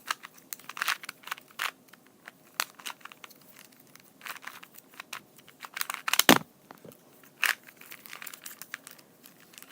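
2x2 Rubik's cube being turned quickly by hand while it is scrambled: irregular rapid plastic clicks and rattles of the layers snapping round, with one louder knock about six seconds in.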